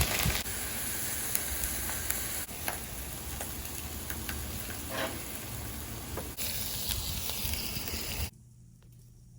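Food sizzling on a hot Blackstone flat-top griddle, with a few sharp clicks along the way. The sizzle cuts off suddenly near the end.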